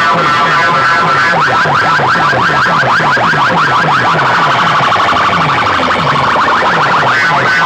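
Loud DJ remix music from a competition sound system: a fast, repeating siren-like synth sweep over a pulsing bass pattern.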